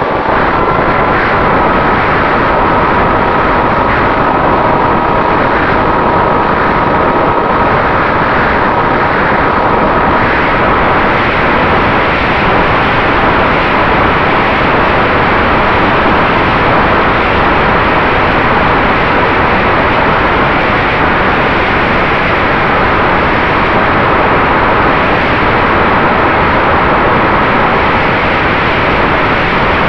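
Ritewing Mini Drak flying wing in flight, heard from its onboard camera: the electric motor and propeller give a steady whine of a few held tones, under heavy wind rush that covers most of the sound.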